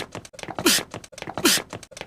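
A male voice actor's anime-style sneeze, looped: a short falling 'ah' snapping into a sharp hissing 'choo'. It repeats about every three quarters of a second, twice in full, with the tail of another at the start.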